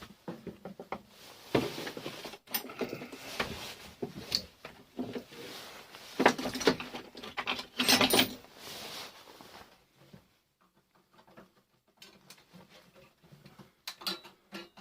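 Irregular clicks, taps and scraping of small metal and plastic parts being handled as a microwave oven is dismantled by hand, with a quiet pause about two thirds of the way through.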